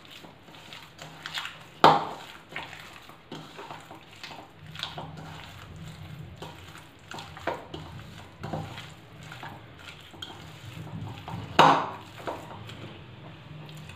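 A hand squeezing and mixing minced mutton with spices in a bowl: irregular squishing and scraping strokes, with two louder sharp knocks, about two seconds in and a couple of seconds before the end.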